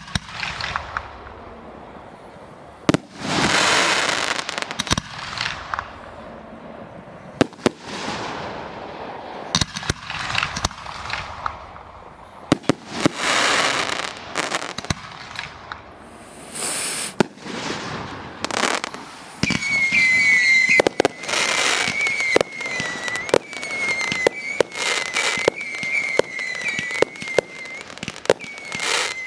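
Fireworks display: sharp bangs of shells bursting, several followed by crackling washes. From about two-thirds of the way in, a high, wavering whistle runs underneath the bangs.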